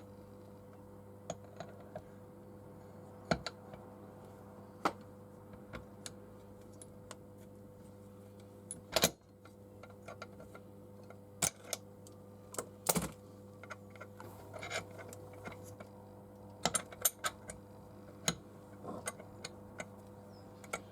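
Steel gearbox parts of a BSA B31 clicking and clinking as the gears, shafts and selector forks are fitted by hand, with scattered light taps and a few louder metal knocks, the loudest about nine seconds in. A steady low hum runs underneath.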